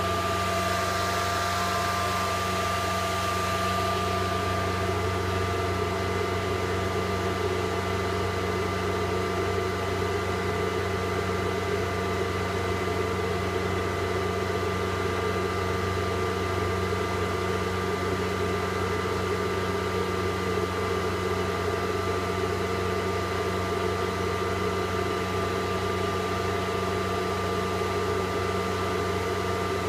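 High-speed cooling fans of an iBeLink ASIC Dash miner running in mining mode: a loud, even rush of air with several steady whining tones over it.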